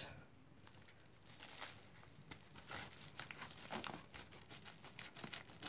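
A plastic mailer bag crinkling and rustling in the hands while scissors snip it open: faint, scattered small clicks and rustles.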